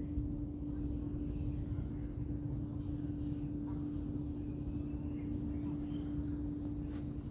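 Outdoor background: a low rumble with a steady hum that cuts off near the end.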